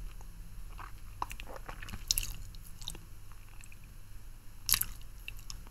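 Close-miked wet mouth sounds from someone eating a lollipop: scattered lip smacks and tongue clicks, the two loudest about two seconds in and near the end.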